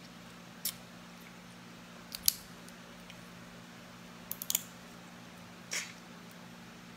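Crab shell cracking and snapping as it is broken apart by hand to pick out the meat: a handful of sharp cracks, with a quick cluster of three about four and a half seconds in, over a steady low hum.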